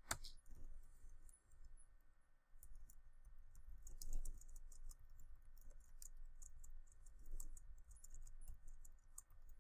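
Faint typing on a computer keyboard: quick runs of key clicks in bursts, with a short lull about a second in.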